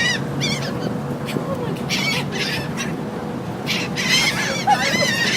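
A flock of gulls calling in repeated clusters of harsh squawks, several overlapping near the end, over the steady low hum of the ferry.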